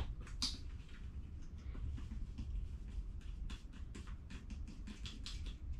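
Faint scattered clicks and light taps of a plastic bottle and a measuring spoon being handled as baking soda is shaken out into the spoon, over a low steady hum.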